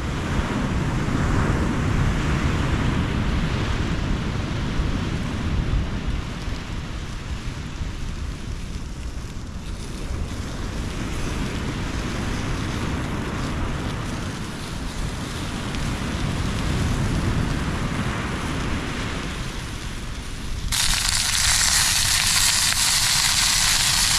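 Wind buffeting the microphone over surf on the beach. About 21 seconds in it switches abruptly to sausages sizzling loudly in a cast-iron pan on a portable gas stove.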